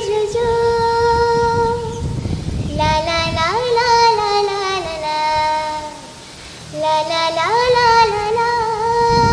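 A young girl singing solo and unaccompanied, in long phrases with sustained held notes. There is a short break about six seconds in, then another long held note. A low rumble runs underneath.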